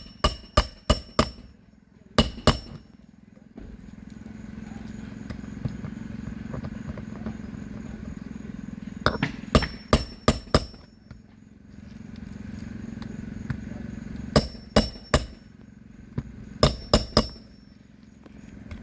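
Sharp, ringing hammer blows driving roofing nails into asphalt shingles, in about five quick bursts of two to six strikes each, with a steady low hum between them.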